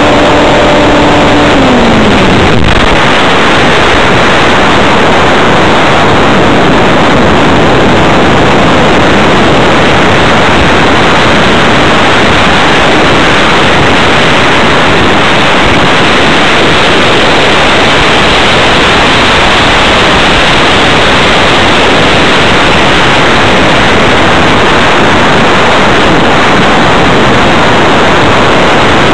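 Electric RC hotliner's motor and propeller whining at a steady pitch, falling away a couple of seconds in as the throttle is cut. After that, loud, steady rushing wind noise over the onboard camera's microphone.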